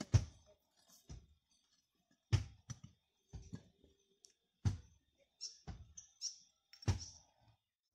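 Loose fired-clay bricks knocking against one another as they are handled in a trench. There are about nine sharp, irregular knocks.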